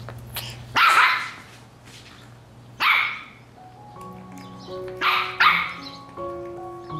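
Shih Tzu puppy barking: four short, sharp barks, one about a second in, one about three seconds in, and two close together a little after five seconds. Soft background music with a gentle melody comes in about halfway through.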